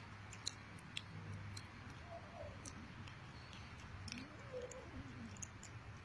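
Stray cats eating raw chicken pieces: faint, scattered clicks of chewing and tearing, with a few short faint meows.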